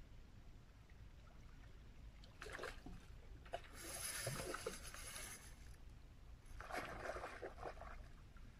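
A hooked kingfish splashing at the water's surface as it is played close to the rocks, in three bursts of splashing with the longest starting about four seconds in.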